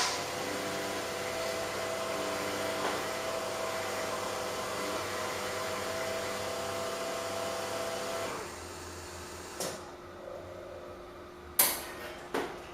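Carimali Armonia automatic coffee machine dispensing a hot chocolate: a steady motor whirr with a hum. It stops about eight seconds in, leaving a quieter hum, and a few sharp clicks follow near the end.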